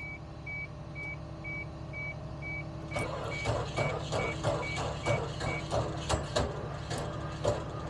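A Suzuki Sidekick's warning chime beeps steadily about twice a second as the ignition is switched on. About three seconds in, the starter cranks the engine in quick rhythmic pulses for roughly four seconds; the chime stops partway through.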